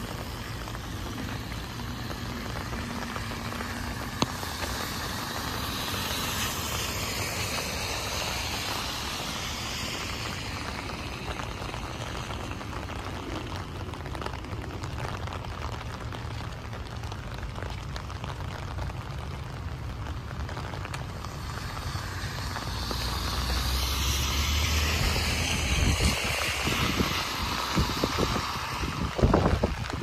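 Steady rain with tyres hissing on a wet road as vehicles drive past. One pass swells and fades about a quarter of the way in. A louder one, a school bus with a low engine rumble, builds in the last third as it comes alongside. A few sharp thumps near the end.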